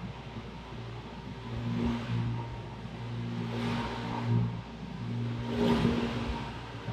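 Electric deck-sanding machine (a Pivot Square Scrub) running steadily on wooden deck boards, with a swell of scrubbing noise about every two seconds as it is worked back and forth.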